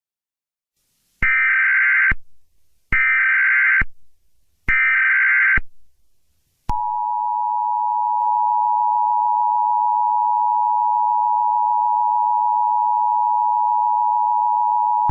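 Emergency Alert System SAME header: three short bursts of screeching digital data tones, each just under a second long. About seven seconds in, the two-tone EAS attention signal (853 and 960 Hz together) starts and holds steady for about eight seconds, announcing an alert message.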